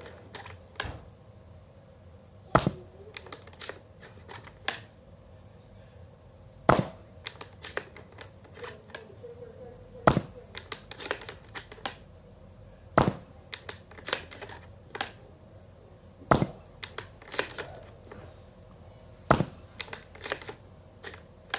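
Suppressed Wolverine BOLT HPA airsoft gun firing 0.30 g BBs at 330 fps: six sharp shots about every three seconds, each BB striking a pillow target, which is louder than the gun itself. Smaller clicks and knocks come between the shots.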